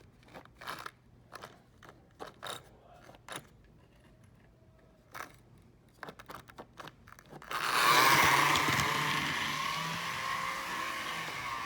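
A few small clicks and knocks of handling, then about two-thirds in the model switcher locomotive's electric motor starts running with a loud, rough whir that eases off slowly. Very loud, but growing quieter the more it runs, as a worn, dirty motor beds back in.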